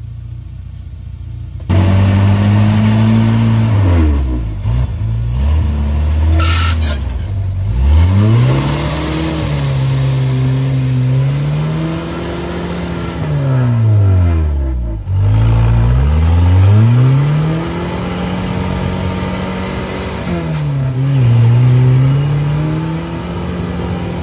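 Lifted Jeep's engine revving hard under load as it crawls over boulders. The engine note comes in loud about two seconds in, then climbs and falls back again and again as the throttle is worked. There is a brief high-pitched noise about six and a half seconds in.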